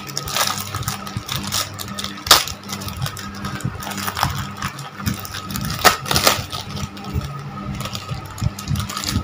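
Crinkling and crackling plastic wrapper of a sanitary pad being opened and unfolded by hand, with two sharper crackles about two and six seconds in, over a faint steady hum.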